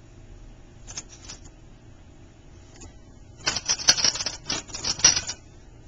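A dense run of rapid sharp clicks and scratches lasting about two seconds, from handling an opened sea urchin's spiny shell over a steel sink, with a few faint ticks about a second in.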